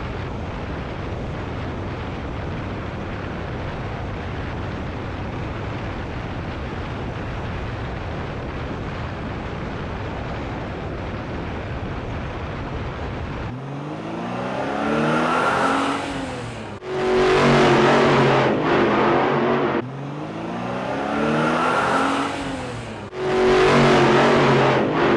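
Steady rushing road noise, then about thirteen seconds in, an added racing-car engine sound effect revs up in rising sweeps through the gears, the loud run-up playing twice.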